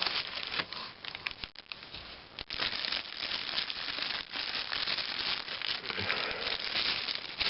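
Packaging crinkling and rustling with many small crackles, as a set of skateboard trucks is unwrapped and handled.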